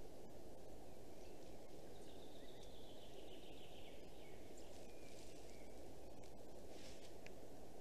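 Steady low rushing forest background noise with faint, distant small-bird calls: a thin falling whistle about two seconds in and a few short chirps just after the middle. The stork itself is silent.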